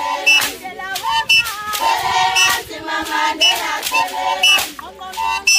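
A group of women singing a traditional song together, with sharp beats and short high notes recurring in a steady rhythm about twice a second.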